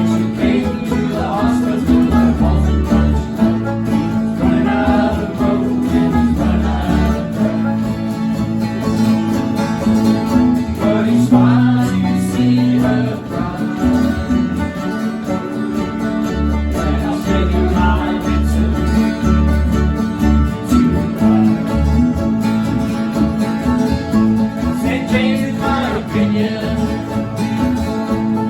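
Bluegrass music: acoustic guitar and banjo picking over a steady bass line, with a sung vocal.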